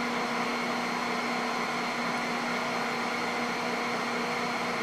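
A steady machine hum with a constant low tone and an even noise over it.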